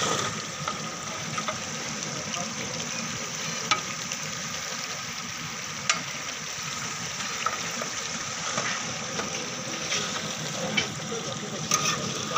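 Large cooking pots on outdoor stoves: a steady hiss of frying or cooking, broken by a few sharp clicks.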